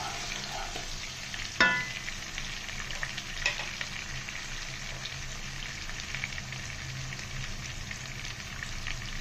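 Sliced onions sizzling and crackling in hot oil, stirred with a wooden spatula, cooking lightly without browning. About one and a half seconds in, a single sharp knock against the pan rings briefly.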